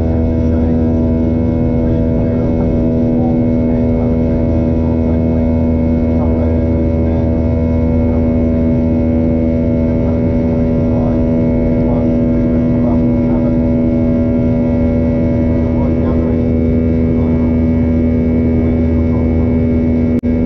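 Boeing 737-800's CFM56-7B turbofan engines at climb power, heard inside the cabin: a loud, steady drone made of several fixed tones over a low rumble, the engines' buzzsaw sound.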